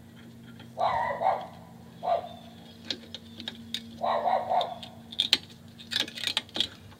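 Pliers clicking and scraping on a drum brake's shoe hold-down spring retainer as it is pushed in and turned to free it from its pin, a run of small sharp metallic clicks that grows busier in the second half. Two louder short muffled sounds come about one second and about four seconds in, over a faint steady hum.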